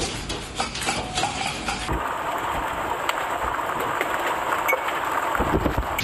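Storm sound: hail and rain clattering in many sharp impacts on hard surfaces. About two seconds in it cuts to the steady rush of a heavy downpour.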